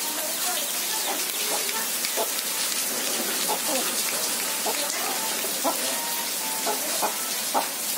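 Steady rain falling, an even hiss, with a chicken's short soft clucks scattered through it.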